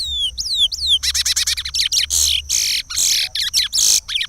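Curió (chestnut-bellied seed finch) singing the Pará regional song: a few clear whistled notes that fall in pitch, then a rapid run of notes, then longer, harsher notes.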